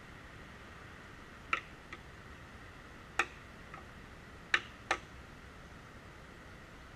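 Split red oak wood knocking as the pieces are handled: four sharp knocks, the last two close together, with two fainter taps between, over a low steady hiss.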